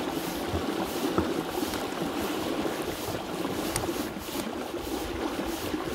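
Shallow, clear river flowing over a gravel bed: a steady rushing and rippling of current.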